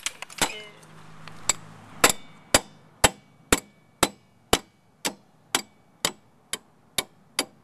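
A multi-tool hammered against a nut threaded onto the end of a rear strut's lower mounting bolt to drive the bolt out: about a dozen sharp metal-on-metal strikes, about two a second, starting about two seconds in.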